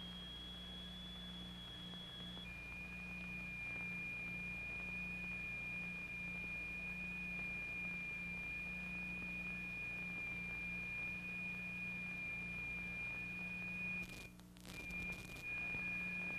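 A single steady high-pitched electronic tone, the sine tone driving the vibration experiment. It steps down to a lower pitch about two and a half seconds in, over the hiss and low hum of an old film soundtrack. Near the end the tone cuts out for about a second with a few clicks, then comes back.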